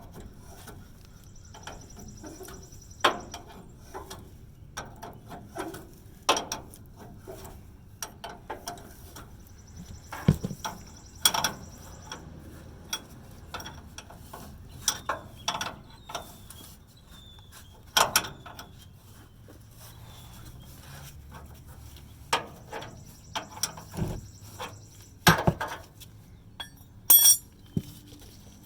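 Wrenches clinking and knocking on the steel fuel line fittings of a 1990 Chevrolet C1500's fuel filter as the fittings are loosened: sharp metallic clicks and clanks at irregular intervals, with three short spells of a thin high rasp.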